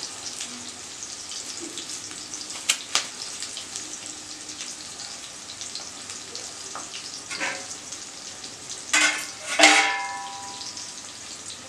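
Chopped tomato, capsicum and green chilli sizzling steadily in hot oil in an iron kadai. There are two sharp clicks about three seconds in. Near the end comes a louder clatter that rings briefly, as when a utensil knocks on the pan.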